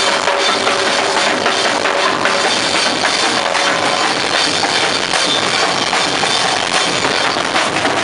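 Snare drums and a handheld crash cymbal played together in a fast, dense, loud beat that never lets up.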